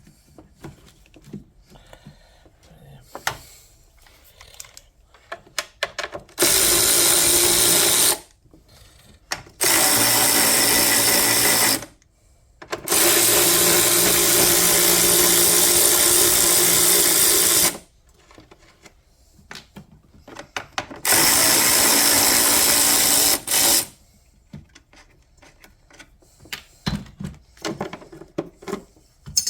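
Power tool with a 10 mm socket run in four bursts of about two, two, five and three seconds, driving bolts while the car battery is being removed. Light clicks and knocks of the socket and parts come between the runs.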